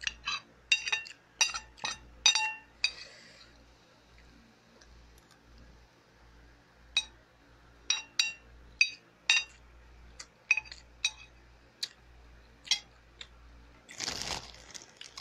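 A run of sharp, ringing clinks of small hard objects, like glass or dishes being tapped, coming in two spells with a pause between them. About fourteen seconds in there is a short rustle.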